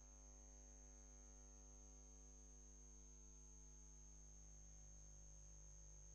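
Near silence, apart from a faint steady electrical mains hum with a thin high-pitched whine above it.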